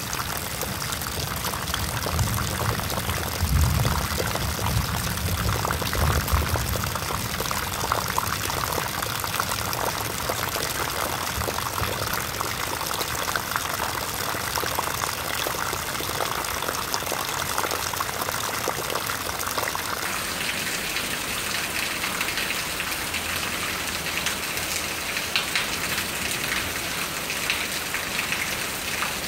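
Heavy rain, with water streaming off the roof edge and splashing into a puddle. A low rumble runs under it from about two to seven seconds in. About twenty seconds in, the sound changes to an even, brighter rain hiss.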